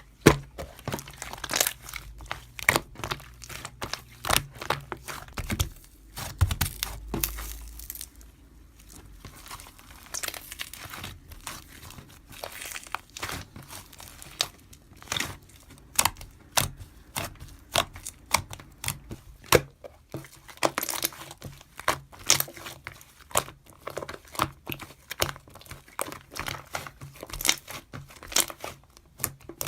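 Slime being pressed and stretched by hand, giving a dense run of crinkly, crackling clicks and small pops.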